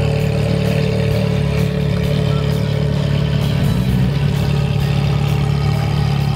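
A sports car's engine idling steadily.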